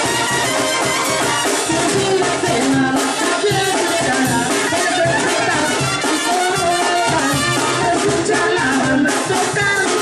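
A Mexican banda playing live: trumpets and trombones carrying the melody over a sousaphone bass line, with bass drum and cymbals keeping a steady beat.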